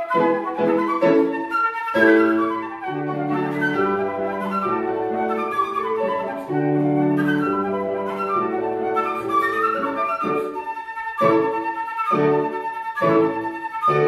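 Silver concert flute playing with a Petrof grand piano accompanying. Short detached notes near the start and again from about ten seconds in, with longer held notes in between.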